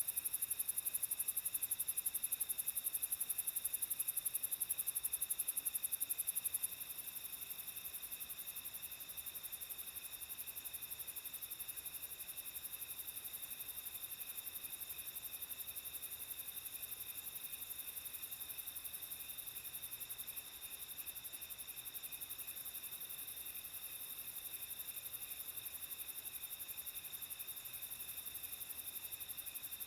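Night insects such as crickets trilling steadily in several pitch bands, with a very high, rapid trill that drops sharply in loudness about seven seconds in.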